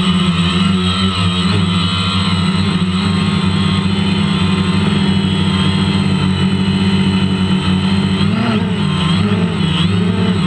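Drone's electric motors and propellers running steadily, with a buzzing hum whose pitch wavers up and down as the motor speeds change, more noticeably near the end.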